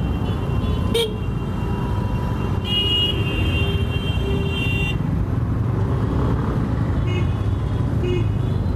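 Congested street traffic heard from a scooter creeping through a jam: a steady engine and road rumble with vehicle horns honking. One honk lasts about two seconds, and short toots come near the end. There is a sharp click about a second in.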